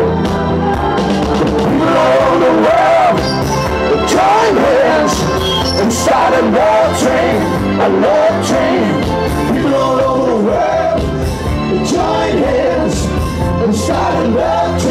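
Live tribute band playing an upbeat soul-rock song: a lead vocal sung over the full band with a steady beat, loud and unbroken.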